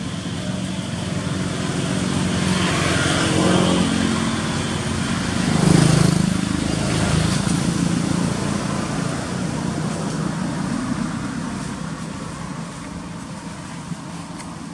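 A motor vehicle engine passing by, growing louder to a peak about six seconds in and then slowly fading away.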